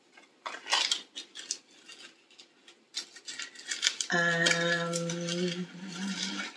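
Light clicks and rustles of small objects and packaging being handled. A little past halfway, a woman hums a steady note with her mouth closed for about two seconds; it steps slightly higher just before it stops.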